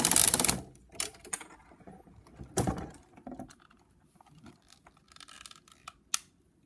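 Lego Technic motor and gearing running with a fast rattling buzz that cuts off about half a second in. It is followed by scattered plastic clicks and knocks of Lego parts being handled, the loudest a single knock about two and a half seconds in.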